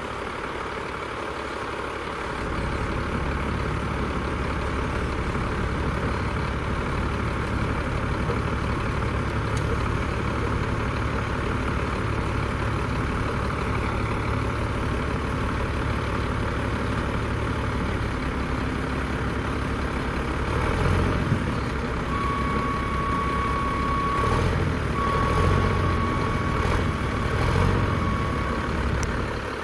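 Diesel engines of Caterpillar 966 wheel loaders running under load as they lift a crawler tractor. They throttle up about two seconds in and surge harder near the end. A high steady tone sounds twice over the last several seconds.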